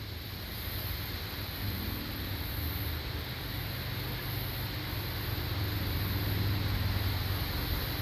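Wind buffeting the microphone: a steady low rumble with a hiss over it, growing a little louder toward the end.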